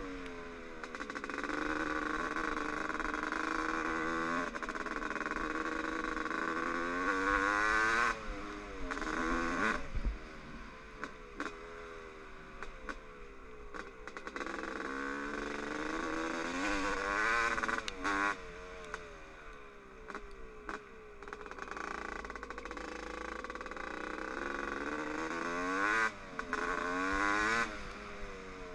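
1996 Honda CR250R's 250 cc two-stroke single-cylinder engine revving as it is ridden, heard from the rider's helmet. The pitch climbs hard and drops back several times with the throttle, most strongly about eight, seventeen and twenty-six seconds in.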